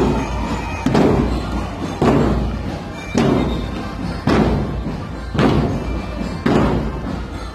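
Marching bass drums of a military drum band beating a slow, steady cadence together, about one heavy stroke a second.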